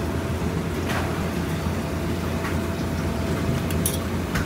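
Steady low hum of a busy restaurant kitchen, with a few sharp knocks and clicks of utensils and cookware about one, two and a half, and four seconds in.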